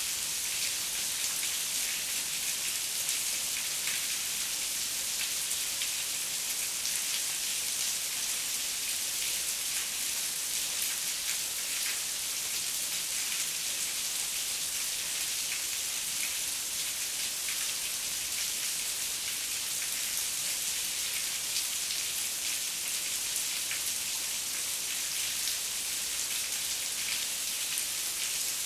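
Heavy rain falling steadily: an even hiss of rainfall, strongest in the upper range, with many small ticks of individual drops.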